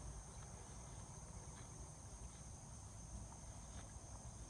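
Faint, steady high-pitched chorus of insects, a continuous trill with a low rumble underneath.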